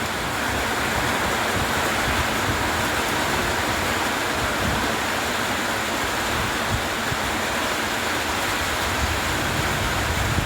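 Heavy rain pouring steadily, a dense even hiss, with uneven low rumbling underneath.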